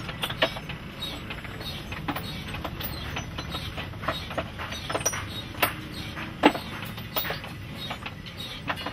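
Metal rods and tools clinking and knocking against each other and the coals of a blacksmith's coal forge, irregularly, a couple of times a second, over a steady low rumble.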